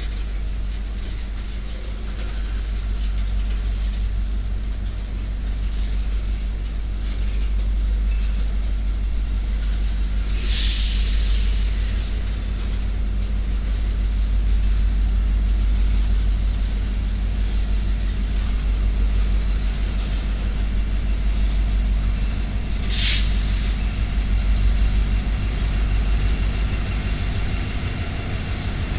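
Freight train of tank cars rolling past with a steady low rumble of wheels on rail, a Union Pacific SD70ACE diesel locomotive among them. Two brief high hisses come about 10 and 23 seconds in.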